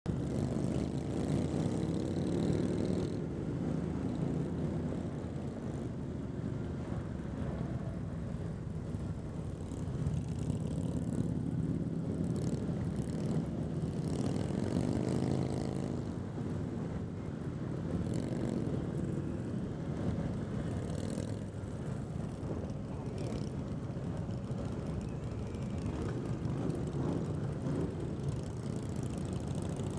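Motorcycle engines running under way in a group ride, the nearest one loudest. Its pitch rises and falls twice as it accelerates and eases off, once near the start and again about halfway through.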